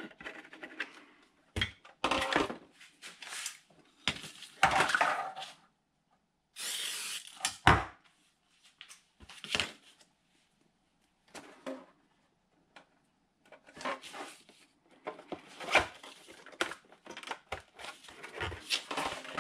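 Handling noise from 3D-printed plastic wing parts being glued and fitted together: irregular knocks, taps and rustles of hard plastic on cardboard, with a brief hiss of about a second some six and a half seconds in.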